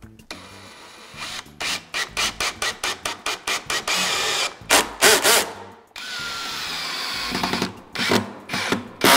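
Worx 20V cordless drill/driver driving screws through a galvanized steel angle bracket into wood. It runs first in a quick string of short bursts, then in a longer steady run, and ends with a few more short bursts.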